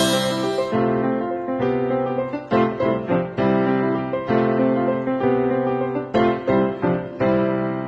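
Digital piano played in a run of struck chords, the last chord near the end left ringing and fading. A sustained harmonica note cuts off within the first second.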